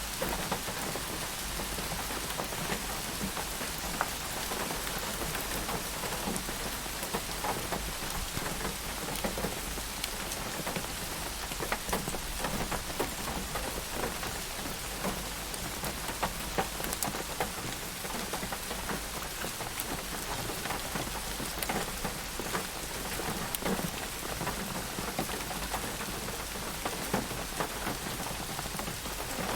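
Steady rain falling on a surface, a continuous hiss dotted with many individual drop impacts.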